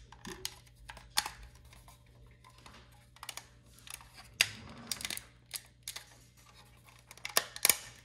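Plastic night-light housing being worked apart by hand: irregular clicks, creaks and scraping of plastic parts, with a few sharper snaps, the loudest near the end.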